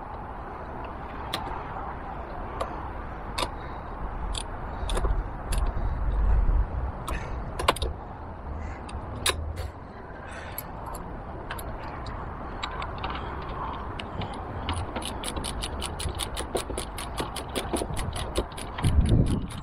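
Hand socket ratchet working nuts and screws on a metal top-box mounting plate. Scattered clicks and knocks at first, then a steady run of about six ratchet clicks a second near the end, followed by a low thump.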